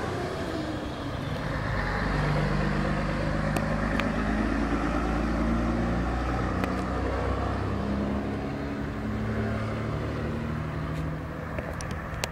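Scania K113CL coach's 11-litre six-cylinder turbo diesel through a straight-through exhaust, a deep steady drone as the coach pulls away down the street, its note shifting in steps.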